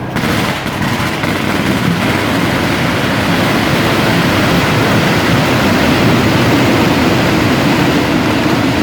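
A long string of firecrackers going off in a dense, continuous crackle that starts suddenly and keeps up steadily.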